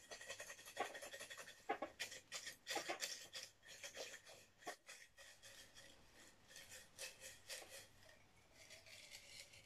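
Folded paper slips rustling and rattling inside a mug that is being shaken hard by hand, faint, in quick irregular shakes that thin out near the end.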